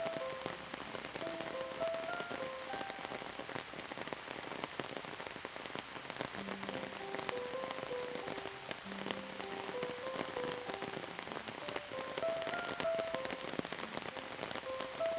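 Steady rain falling with many sharp individual drop hits, over a slow, soft melody of short held notes.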